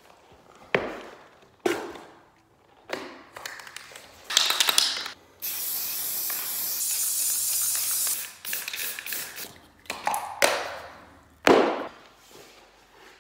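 Aerosol can of Krylon Fusion All-in-One spray paint spraying: a short burst, then a steady hiss of about three seconds. Sharp knocks from handling the can and the metal vent register come before and after, the loudest near the end.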